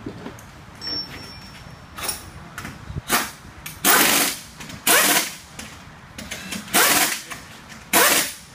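Pneumatic impact wrench rattling in about five short bursts, each under half a second, on a front wheel's lug nuts.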